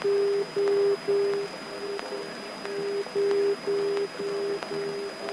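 A low electronic tone beeping in the small airplane's cockpit audio, in long dashes about twice a second with short gaps, dipping weaker about two seconds in.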